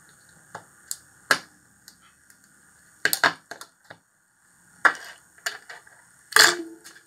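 Small electronic parts and tools handled on a workbench: a series of sharp clicks and knocks, several close together about three seconds in and the loudest near the end, over a steady faint high whine.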